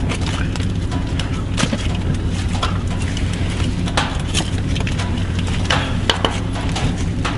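A steady low hum with scattered light clicks and knocks, the loudest about four seconds in and again near six seconds.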